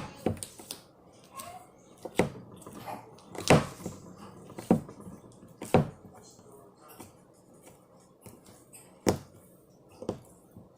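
Homemade slime being squeezed and slapped by hand, giving sharp, irregular smacks and pops, about seven over ten seconds.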